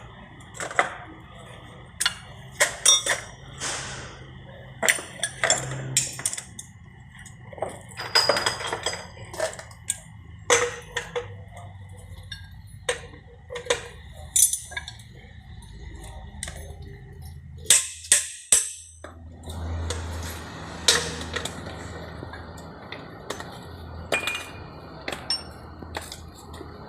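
Irregular metallic clinks and knocks of hand tools on metal during a repair, some single and some in quick clusters, over a low steady hum.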